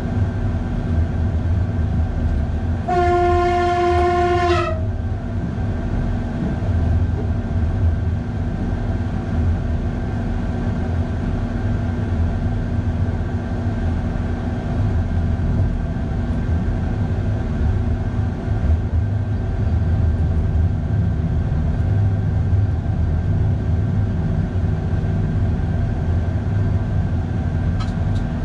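Electric train's horn sounded once, a single blast of nearly two seconds about three seconds in, its pitch sagging as it cuts off. Under it runs the steady rumble and hum of the train running, heard from the driver's cab.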